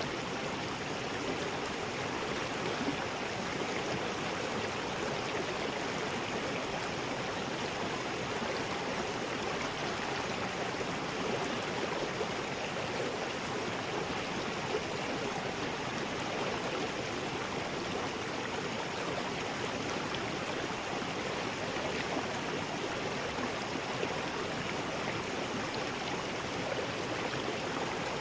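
River rapids: water rushing steadily over rocks in a continuous, even roar.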